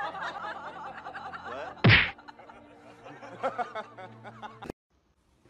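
A person laughing and snickering, with one loud slap-like smack about two seconds in. The laughter cuts off abruptly shortly before the end.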